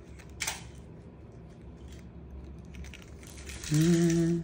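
Small handling clicks and rustles as something is poked into an airsoft tracer unit, with a short sharp scrape about half a second in, then a man's brief held hum near the end.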